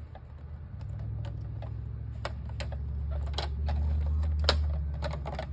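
Handheld paper cutter working its way through paper: a steady low rumble from the blade running along its track, with scattered clicks and taps from the cutter and the paper being handled.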